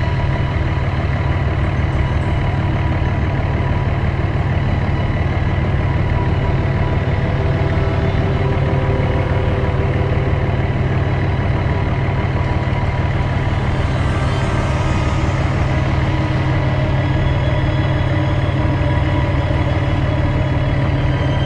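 An engine running steadily: a strong, low hum with no change in speed.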